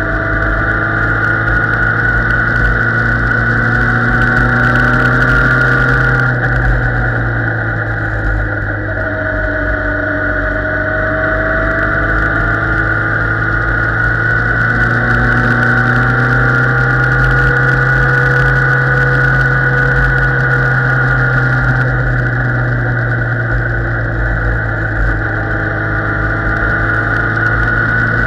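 Motorcycle engine running steadily while riding, its pitch rising and falling slightly as the throttle changes through the curves, over a constant wind rumble on the microphone.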